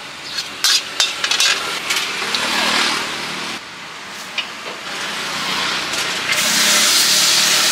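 Metal ladle clinking and scraping against a steel wok on a gas burner, with oil sizzling in the pan. About six seconds in, a loud steady sizzling hiss starts as liquid is poured into the hot wok and turns to steam.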